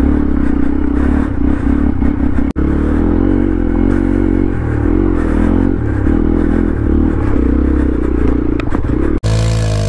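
Hero Xpulse 200 4V's single-cylinder engine revving up and down under load as the motorcycle climbs a steep, rough off-road trail. The sound drops out briefly twice, about two and a half seconds in and near the end.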